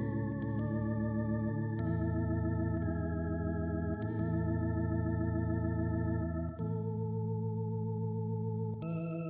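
Background music of slow, held organ chords that change every two seconds or so.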